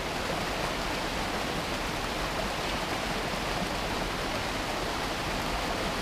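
Creek water running over rocks and a small cascade, a steady, even rush of flowing water.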